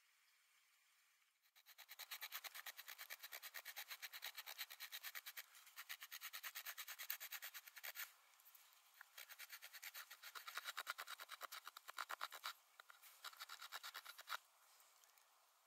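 Elderberry branch being scraped by hand for a tool handle: quick short scraping strokes, several a second, in runs broken by brief pauses. The scraping starts about a second and a half in and stops shortly before the end.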